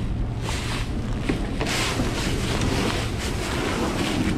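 Plastic Pelican fishing kayak hull scraping and sliding over dry leaf litter as it is dragged by its carry handle, louder about two seconds in, over a steady low rumble of wind on the microphone.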